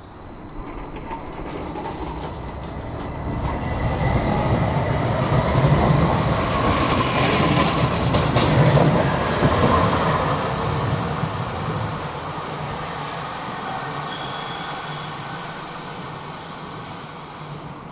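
Stockholm Tvärbanan (line 30) light-rail tram running along the platform. Its rumble builds, peaks about halfway with high-pitched wheel squeal, then fades away.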